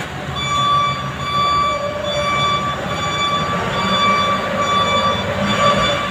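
Komatsu GD511A motor grader running: a low diesel rumble under a steady high-pitched whine that breaks off briefly a few times.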